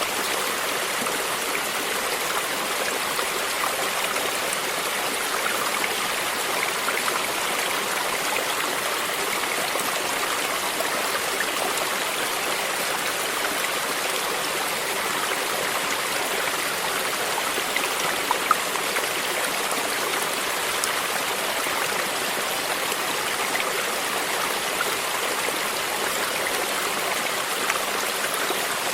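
Stream flowing: a steady rush of water with small splashes and trickles, and one slightly louder splash a little past the middle.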